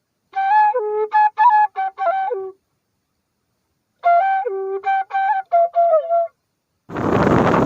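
A short flute-like melody played in two quick phrases of rapid notes, each about two seconds long, with complete silence between them. Near the end, a loud, steady rushing noise cuts in.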